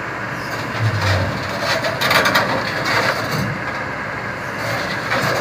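Heavy machinery running steadily, with a run of clanks and crunching knocks about half a second to three and a half seconds in, from a Kobelco SK200 crawler excavator sitting on a lowboy trailer's steel deck.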